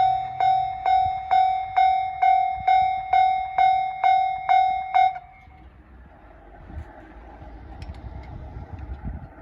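Level-crossing warning bell ringing in a steady repeated clang about twice a second, then stopping abruptly about five seconds in, which signals that the crossing is clearing. A faint low rumble follows.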